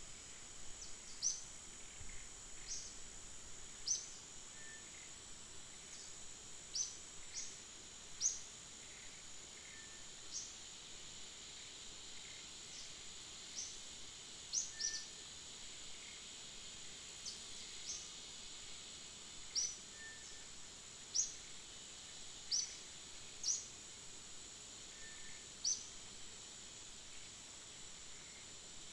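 Forest ambience: a steady high-pitched insect drone, with short high chirps every second or two and a few fainter lower notes between them.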